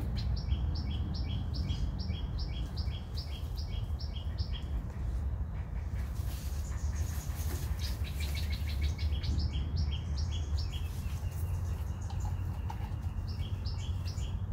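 A bird calling in quick series of short chirps, alternating a higher and a lower note about four times a second, in three bouts with short gaps between. A steady low hum runs underneath.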